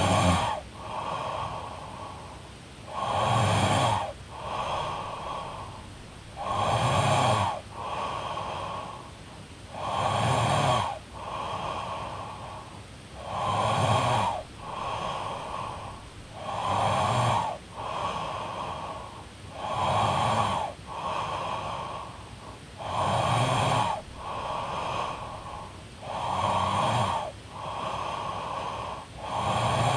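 A young woman snoring in a steady rhythm, one breath cycle about every three seconds: a louder snore about a second long, then a softer, breathy follow-through, about ten times over.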